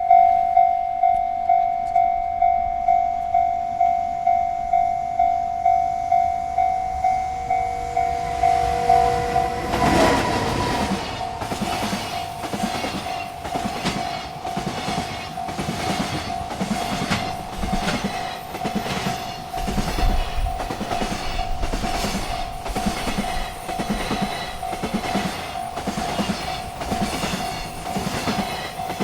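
Railroad crossing bell ringing steadily about twice a second. About ten seconds in, a freight train arrives at the crossing and its wheels clack rhythmically over the rail joints while the bell keeps ringing.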